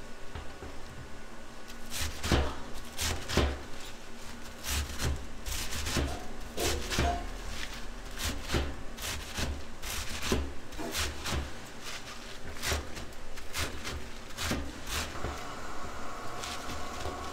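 Large kitchen knife chopping shredded vegetables on a wooden cutting board: an uneven run of quick knocks of the blade against the board, several a second.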